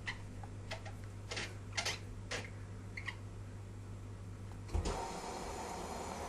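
Privileg Sensation 9415 washing machine running: a steady low hum with scattered clicks and knocks. About five seconds in there is a thump, the hum stops, and a different, higher steady running sound takes over.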